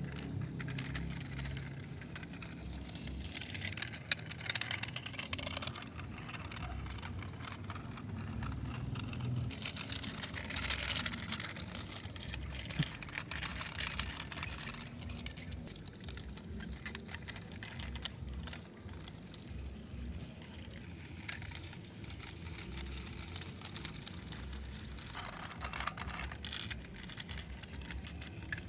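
Toy trucks pushed by hand over dry, sandy dirt and dead leaves: the small wheels crunch and scrape in several bursts of gritty rustling, over a low background rumble.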